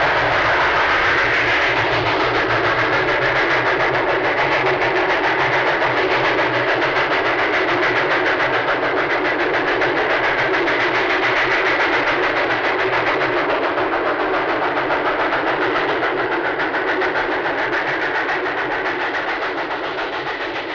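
A train running on rails: a steady, dense rumble with a fast, even rattle, easing slightly near the end.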